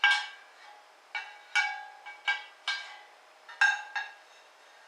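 A serving spoon clinking against cookware and a dinner plate while food is dished up: about seven sharp clinks, each with a short ring.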